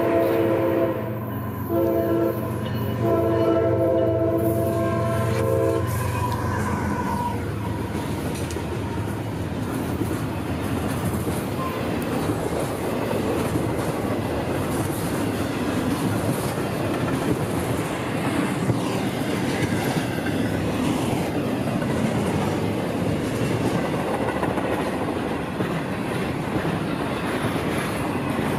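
Diesel locomotive horn sounding several blasts, the last one long and ending about six seconds in. Then a long freight train of double-stack container well cars passes close, a steady rumble with wheels clicking over the rail joints.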